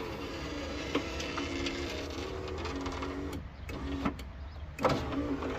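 The freshly repaired power window motor of a 1995 Ford pickup runs with a steady whine, raising the door glass a little slowly because the engine is not running. The motor stops and starts again twice, about three and a half seconds in and near the end, with sharp clicks at the stops.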